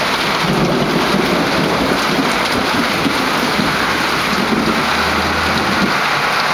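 Heavy rain pouring down on pavement and a parked car, a loud steady hiss, with a low rumble about five seconds in.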